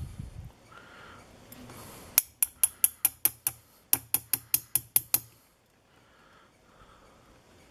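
Rapid mechanical clicking while a lock is being taken apart: two runs of about seven sharp, evenly spaced clicks, about five a second, after a brief low thump at the start.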